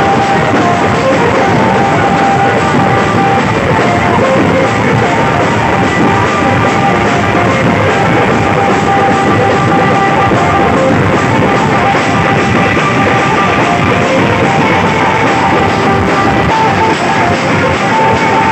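Loud music with a steady beat, played over a large DJ sound system of loudspeaker cabinets and horn speakers.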